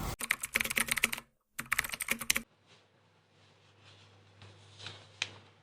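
Fast typing on a keyboard in two quick runs of clicks, each about a second long, separated by a short pause; after that only a few faint clicks.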